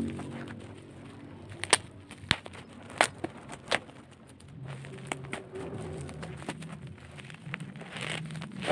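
Perfume packaging being handled and opened: crinkling with a handful of sharp clicks and taps, four of them close together in the first half.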